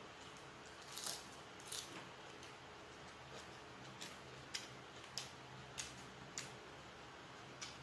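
A person chewing food close to the microphone: short wet mouth clicks, about one every half second or so, over a faint steady hum.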